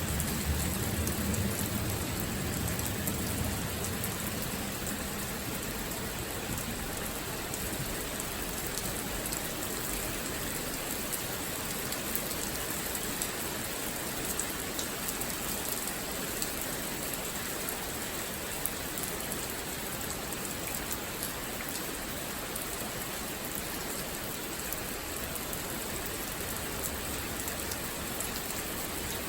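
Steady rain falling, an even hiss with scattered drops ticking on a surface. There is a faint low rumble in the first few seconds.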